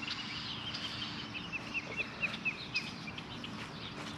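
Birdsong: a bird repeats a short chirping note about six times a second for roughly a second and a half, among other scattered chirps, over a faint steady low hum.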